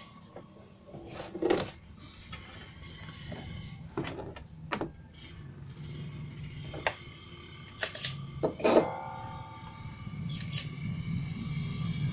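Clatter of a CRT TV's chassis circuit board being handled and turned over: a series of separate knocks and clicks of plastic and board, the loudest about nine seconds in, over a steady low hum.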